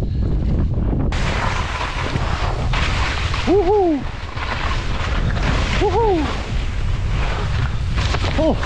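Wind rumbling on the microphone, joined about a second in by the loud hiss and scrape of skis carving down firm snow in a steep couloir. Two short rise-and-fall voice calls cut through, about 3.5 and 6 seconds in.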